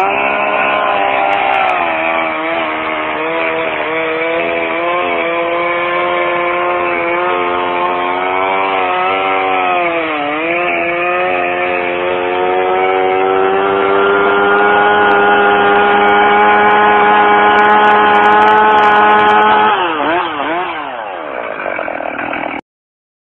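Gasoline chainsaw cutting into a felled, hollow hemlock log, its engine pitch sagging and recovering under load, then holding steady at high speed before dropping back toward idle about twenty seconds in. The sound cuts off suddenly near the end.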